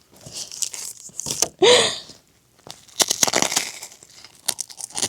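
Close crinkling and crunching, with a short high-pitched vocal sound about two seconds in and a run of sharp crackly clicks in the second half.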